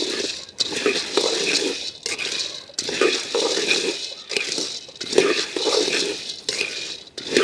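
Raw peanuts dry-roasting in a large metal wok, stirred and scraped with a coconut-shell ladle: the nuts rattle and rush against the metal in repeated sweeping strokes with short pauses between them.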